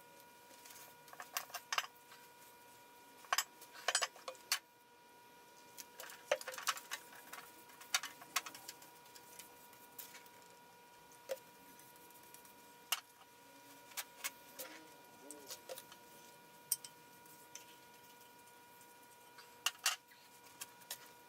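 Scattered sharp clicks and light clinks at irregular intervals, over a faint steady high-pitched tone.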